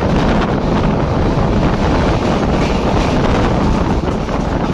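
Wind buffeting a microphone held out of a fast-running passenger train, over the steady rumble of the coach on the rails.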